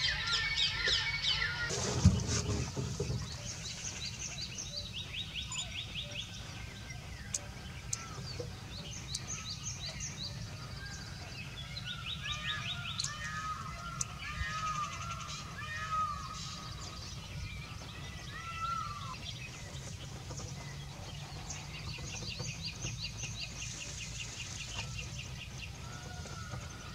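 Wild birds singing and calling: quick trilled runs of high notes and short rising-and-falling chirps, over a steady low rumble. A single thump about two seconds in is the loudest sound.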